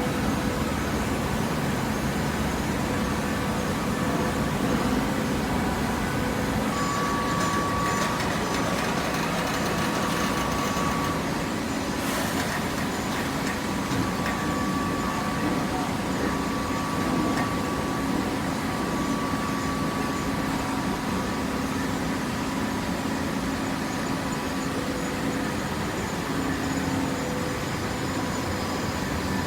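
Hydraulic waste paper baler running: a steady machine hum with a few faint held tones. There is a single brief click near the middle.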